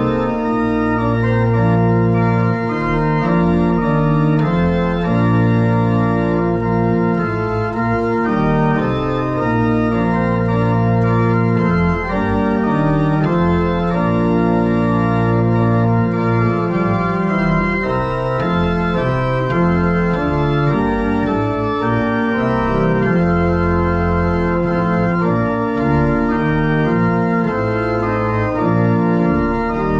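Two-manual church organ playing: full sustained chords that change every second or two over deep bass notes.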